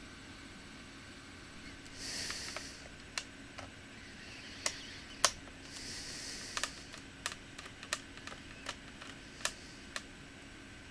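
Scattered small clicks and taps of a screwdriver and screws on a laptop's plastic case, about a dozen, irregularly spaced, with three brief scraping rustles.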